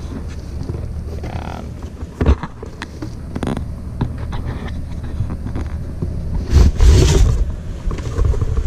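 A cardboard helmet box being opened by hand, with its flaps and the plastic bag inside handled: scattered clicks, and a loud rustle about seven seconds in, over a steady low rumble.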